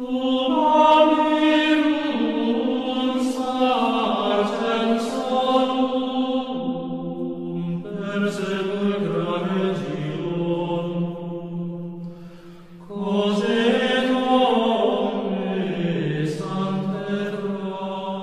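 Slow choral-sounding music: chanted voices holding long chords, with new swells entering about eight and thirteen seconds in.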